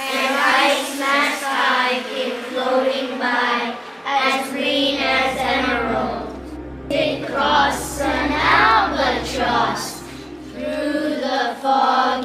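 Children singing together as a group, the voices rising and falling in pitch throughout.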